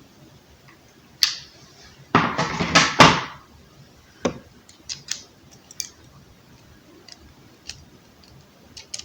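Hand tools and plug parts handled on a work surface: a sharp click, then about a second of clattering of small hard objects, then scattered light clicks and taps as a smaller square-drive driver is picked out for the plug's terminal screws.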